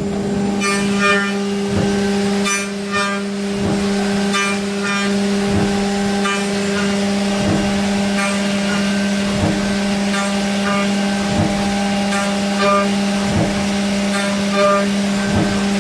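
Haas CNC vertical mill's end mill cutting an aluminium paintball marker body in a first material-removal pass, with a steady hum from the spindle and cut. Sharp clicks come about every two seconds.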